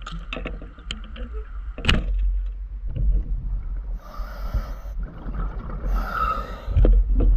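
Underwater audio of a roller speargun being fired: a single sharp click about two seconds in, over a steady low rumble of water on the camera housing. Later come spells of hissing bubble noise and some heavy low thumps near the end.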